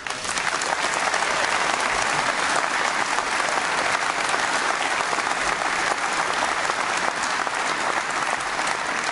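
Conference audience applauding steadily after a policy announcement: a dense, even clapping that starts suddenly and holds for the whole pause.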